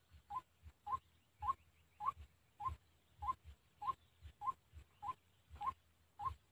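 White-breasted waterhen calling: a short, slightly rising note repeated steadily about once every 0.6 seconds, around eleven times, each with a low thump.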